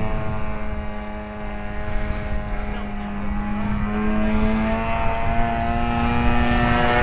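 Converted 47cc single-cylinder two-stroke chainsaw engine on a giant-scale RC Piper Cub model running in flight. Its steady drone dips slightly in pitch and loudness early on, then rises in pitch and grows louder toward the end as the plane comes back toward the listener.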